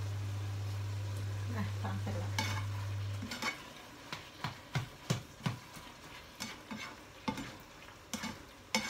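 A spatula stirring and scraping a minced-pork stir-fry in a frying pan, a run of short irregular scrapes and taps over the food's frying. A steady low hum cuts off about three seconds in.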